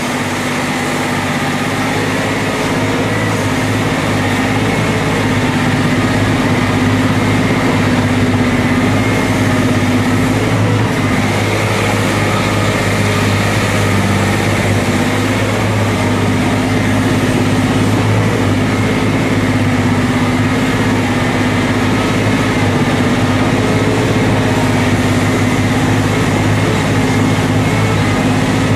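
Liebherr R 964B crawler excavator's diesel engine running steadily, heard close up at the engine compartment.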